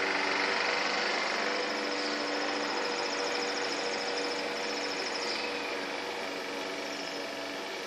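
Steady high-pitched pulsing trill of insects, coming and going, over a low steady hum with several tones.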